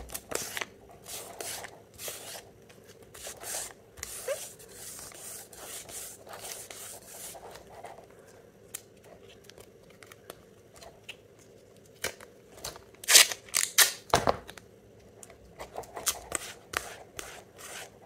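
Adhesive tape being pressed onto the steel laminations of an e-bike hub motor stator and peeled off again, with irregular crackling, rustling and short ripping sounds. The loudest rips come about thirteen to fourteen seconds in.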